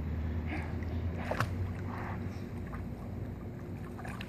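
Soft water sounds of a small child paddling and kicking across a swimming pool in arm floats, over a steady low hum.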